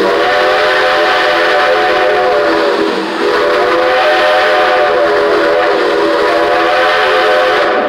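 Steam locomotive's chime whistle blown in two long blasts, the first about three seconds and the second about four and a half, each a chord of several notes that rises slightly in pitch and sags at the end.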